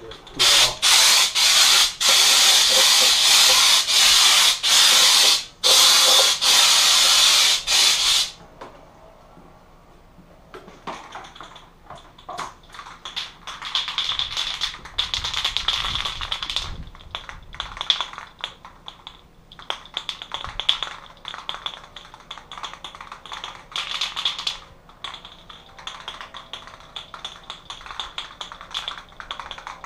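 Aerosol can of epoxy primer spraying in a few long hissing bursts for the first eight seconds or so. Then the can is shaken, its mixing ball rattling in irregular clicks.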